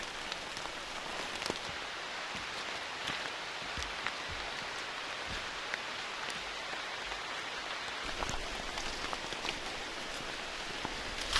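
Heavy tropical rain falling on rainforest foliage: a steady hiss with many scattered, sharp drop taps on the leaves.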